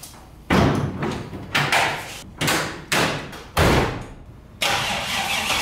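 A car hood and door slammed shut in a series of thumps, then the starter cranks the FC RX-7's swapped 5.3 iron-block LS V8 a little after four seconds in, and the engine catches at the very end. This is a start of the swapped V8 before the car is driven out.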